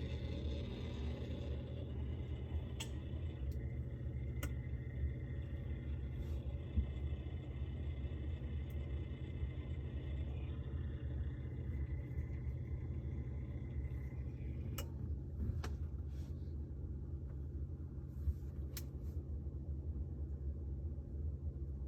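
Refrigerator running with a steady low hum, with a few faint clicks, several of them a little after the middle.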